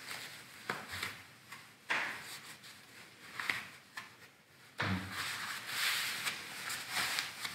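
Thin knit inner glove rustling and rubbing as it is pulled onto a hand and the fingers are worked in, with a few light clicks and knocks. About five seconds in there is a soft thump, followed by denser rustling.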